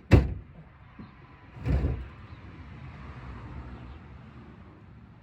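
A door slams shut with a sharp bang, then a duller thump about a second and a half later, followed by a faint steady low rumble.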